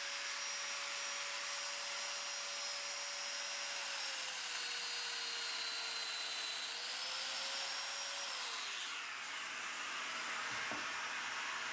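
Festool Domino joiner's motor whining steadily as it plunges a loose-tenon mortise into a wooden leg. The pitch sags under load partway through, recovers, then winds down as the motor is switched off, over a steady hiss that carries on after it stops.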